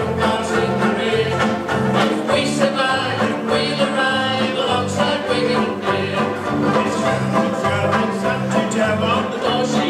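Banjo ukuleles strummed briskly in a steady rhythm while voices sing an upbeat music-hall comedy song together.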